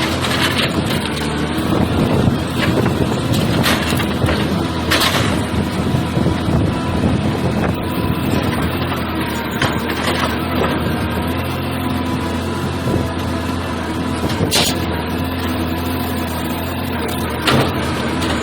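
Heavy sawmill machinery running, its engine droning steadily, with a few sharp knocks and clanks scattered through.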